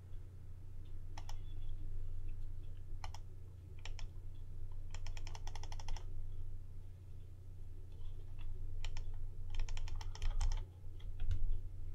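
Computer keyboard keystrokes and clicks: single taps a second or so apart, with two quick runs of keystrokes, one about five seconds in and one near ten seconds, over a steady low hum.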